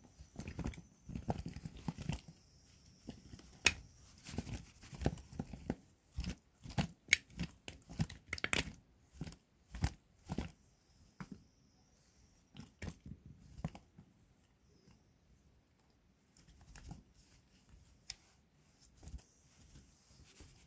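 Freshly caught river fish being dropped and tipped into a metal pan: irregular wet slaps and knocks on the metal with rustling handling between them. The knocks come thick and fast at first and grow sparse after about fourteen seconds.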